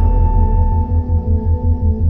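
Ambient background music with long held tones over a steady pulsing bass.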